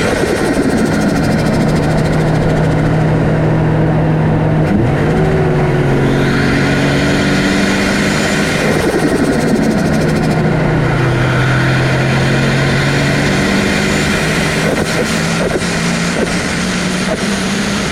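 Turbocharged car engine heard from the engine bay beside its 3-inch aluminium turbo intake pipe while driving: the engine note rises under acceleration and drops sharply at gear changes several times, over a constant rush of intake air and wind.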